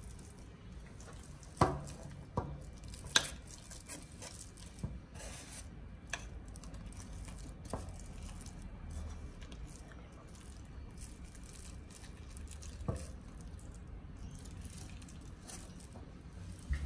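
Yellow butter slime being stirred and folded in a bowl with a silicone spatula: sticky, wet squishing and crackling, with a few sharp taps, most of them in the first few seconds.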